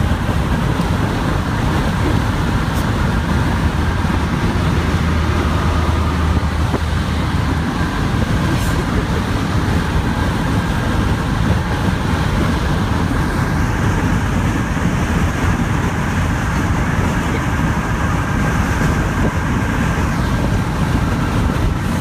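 Steady loud rush of wind through an open window of a moving car, mixed with road noise.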